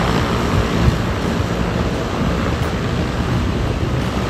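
De Havilland Canada Otter floatplane's engine and propeller running steadily and loudly as it taxis across the water on its floats.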